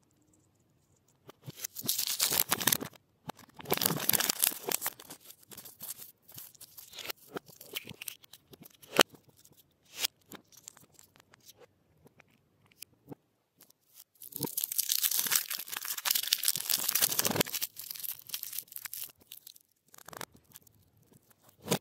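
Foil wrapper of a Kinder Surprise chocolate egg crinkling and tearing as it is unwrapped, in two long stretches. Between them come scattered clicks and taps of a plastic toy capsule being handled, one sharp click about nine seconds in.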